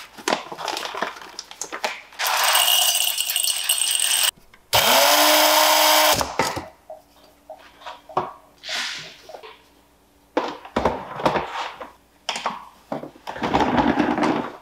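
KitchenAid electric coffee grinder running twice, about two seconds and then just over a second, the motor's pitch rising as it spins up on the second run. Clicks, taps and clatter of the grinder and the coffee maker being handled come before, between and after.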